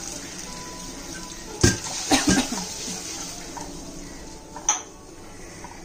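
Water poured from a steel tumbler into a frying pan of curry base, with a few sharp clinks of steel utensils: a pair about a second and a half in, and one more near the end.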